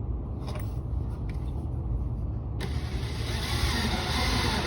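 Power drill driving a screw through a steel magnet catch plate into a cabinet, starting a little over halfway through with a steady motor whir, after a couple of light clicks.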